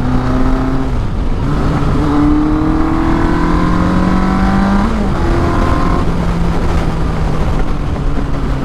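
1983 Suzuki GS1100E's air-cooled inline-four engine pulling the bike along. The revs dip about a second in, climb steadily for about four seconds, drop again at a gear change about five seconds in, then hold steady, over a low wind rush.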